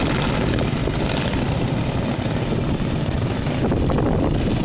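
A pack of racing lawn mowers' small engines running hard together, a loud steady buzzing drone.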